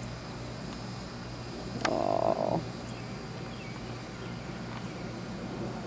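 A frog croaks once, a short rough call about two seconds in, over a steady low hum.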